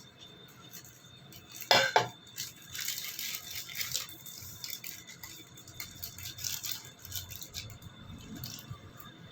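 Two sharp knocks about two seconds in, then light clinking and clattering of cutlery and dishes for several seconds as a meal is handled.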